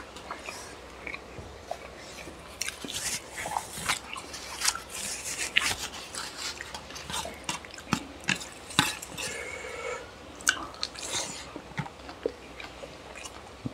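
Close-up eating sounds of chicken curry and rice eaten by hand: wet chewing and lip-smacking, with fingers squishing and mixing the rice and curry, in short irregular clicks and smacks.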